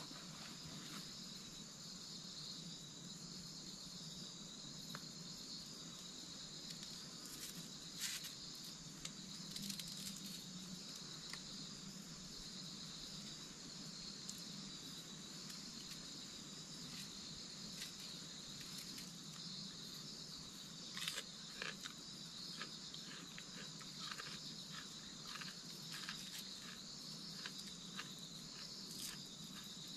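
Steady chorus of forest insects chirring in a continuous high trill. Scattered small clicks and rustles of handling come in over it, more often in the last third.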